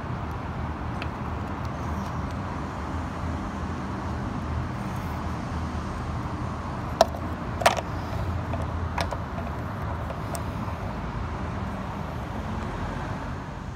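A hand tool clicking against the window-regulator bolts of a car door, a few sharp metallic ticks, the loudest two close together about halfway through and a third a little later, over a steady low rumbling background hum.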